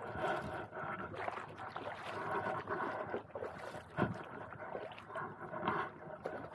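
Kayak paddle strokes and water splashing around the hull, with one sharp knock about four seconds in.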